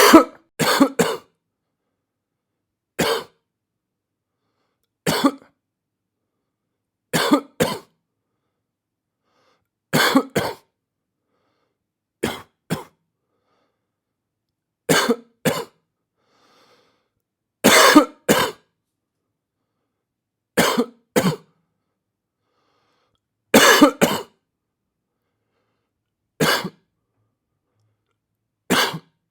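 A person coughing over and over, in single coughs and pairs of coughs that come about every two to three seconds, with silence between.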